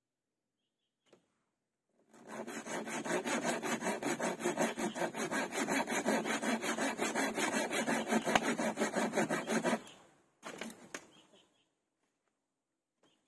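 Hand saw cutting through wood in a steady run of rapid back-and-forth strokes lasting about eight seconds, followed by a brief second burst of strokes.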